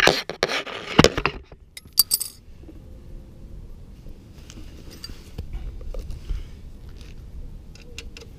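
Small metal screws and hardware clinking and rattling as they are handled and sorted by hand. The clatter is loudest in the first second and a half, with a bright ringing clink about two seconds in, then lighter scattered ticks.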